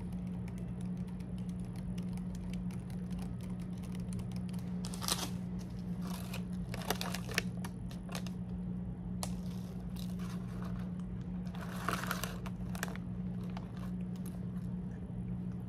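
Plastic bag and paper food wrapper rustling and crinkling as a bun is unwrapped and bitten into, in short scattered bursts with small clicks, over a steady low hum.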